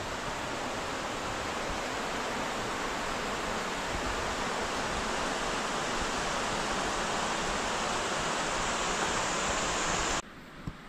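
Steady rushing of a fast-flowing river, growing slightly louder, then cut off abruptly near the end.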